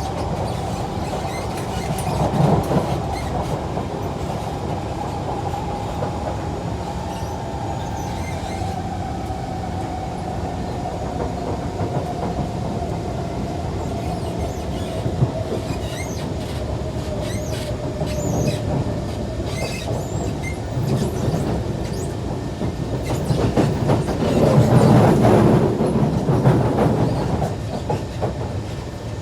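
Kawasaki C151 metro train running on the rails, heard from inside the car: a steady rumble of wheels and track with scattered rail clicks, and a whine that slowly falls in pitch. The rumble and wheel noise grow louder for a few seconds near the end.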